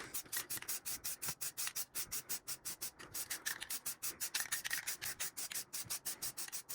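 Hand sanding a car part before painting it: rapid, even rubbing strokes, about seven a second.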